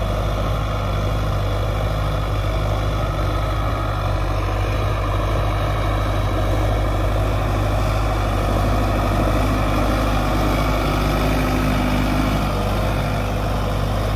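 Sonalika Tiger 55 DI tractor's four-cylinder diesel engine running steadily under load while pulling a tine cultivator through soil, holding its pace without bogging down.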